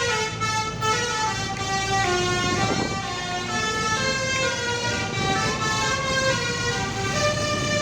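Telolet bus horn, a set of musical air horns, playing a tune: a run of held notes stepping up and down in pitch, with engine noise underneath.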